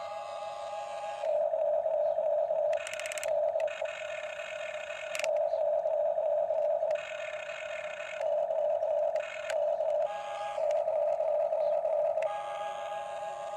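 Huina radio-controlled toy excavator's small electric gear motors whining in repeated spurts, about seven of them, half a second to two seconds each, as the turret swings and the boom, arm and bucket move. A steady fainter hum sits under the spurts.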